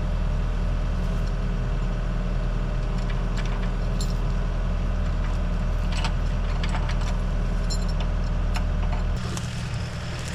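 Skid steer engine running steadily, with a few short knocks over the top; the engine sound stops abruptly about nine seconds in.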